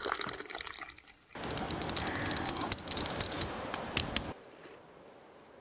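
Tea pouring into a tulip-shaped glass tea glass, then a metal teaspoon stirring in the glass with quick ringing clinks against it. The stirring is the loudest part and cuts off suddenly about four seconds in.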